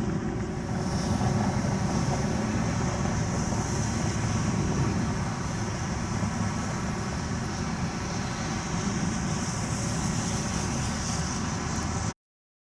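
Steady low rumbling background noise, like vehicle or outdoor ambience, that cuts off suddenly near the end.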